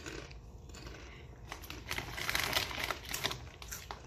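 Cheese-and-onion potato chips crunching as they are chewed, in quick irregular crackles.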